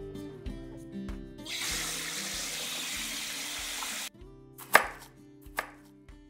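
Kitchen tap running water into a metal bowl at the sink, a steady rush that cuts off abruptly about four seconds in; then a few sharp knocks of a knife on a cutting board. Soft background guitar music underneath.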